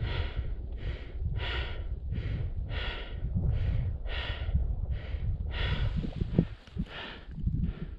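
A climber breathing hard and fast from the effort of hauling up steep granite on a cable: quick breaths, roughly three every two seconds, over a low rumble.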